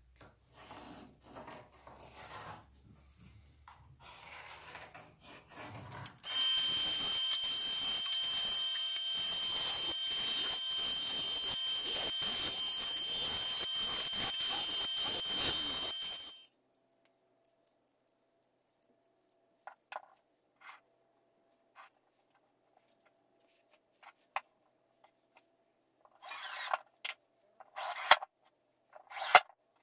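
A Rikon 14-inch bandsaw runs steadily for about ten seconds, sawing a round wooden bowl blank, after faint pencil scratching at the start. Near the end a DeWalt 20V cordless drill/driver drives screws in a few short bursts.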